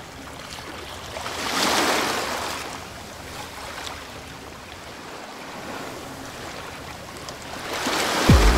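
Rushing, bubbling water sound effect that swells about a second and a half in and again near the end. A loud, bass-heavy dance beat cuts in at the very end.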